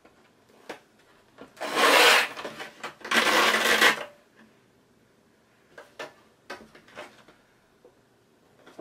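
A folded paper gift bag rustling loudly as it is handled and squeezed while ribbon is fed through it: two crinkling rustles about a second long each, then a few light taps and clicks.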